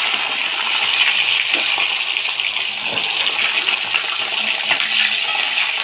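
Potato wedges and whole cumin seeds sizzling steadily in hot oil in a kadai, freshly added to the pan.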